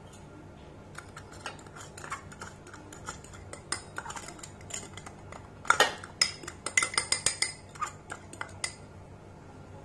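Granulated sugar poured from a small cup into a stainless-steel mixer-grinder jar, with a run of light clinks and ticks that is busiest from about six to nine seconds in.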